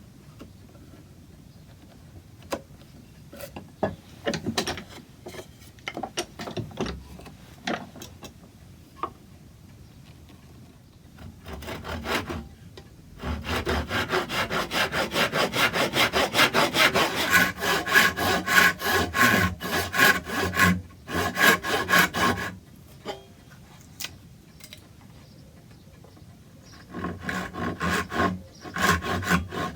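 Hand saw cutting wood in quick back-and-forth strokes, about two a second, in two spells with a pause of a few seconds between. It is most likely cutting a tenon on a new chair stretcher. Before the sawing starts there are scattered light knocks and taps of wood being handled.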